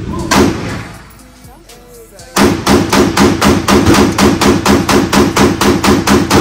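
A customised 9 mm Glock 43X pistol fires a single shot, then after a short pause a rapid, even string of semi-automatic shots, about five a second. This is a mag dump from a 33-round magazine in an indoor shooting range.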